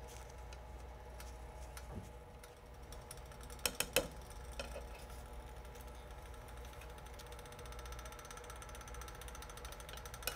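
Metal tweezers dipping a veneer piece into hot sand in a cast iron skillet, with a few sharp clicks of metal on the pan about four seconds in, over a faint steady hum.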